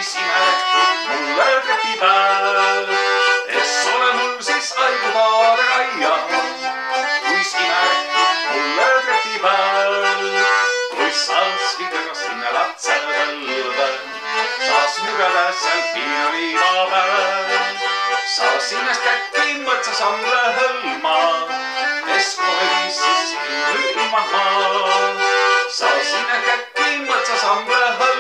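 Button concertina (squeezebox with button keyboards on both ends) playing an instrumental folk tune: a reedy melody over chords, with a steady beat.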